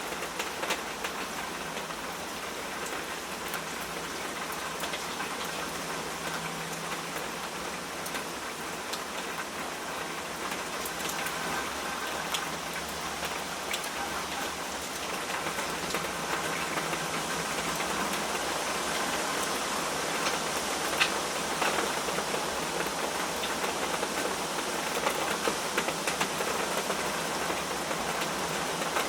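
Steady rain falling, with scattered individual drops ticking above the hiss; it grows slightly heavier about halfway through.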